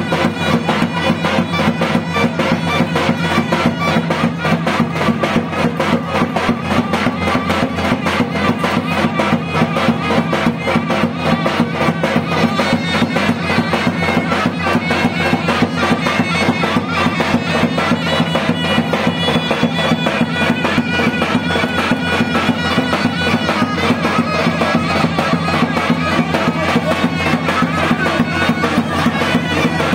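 Traditional Turkish village wedding music: a loud, shrill reed-pipe folk tune over a steady drone, with a fast, even drum beat.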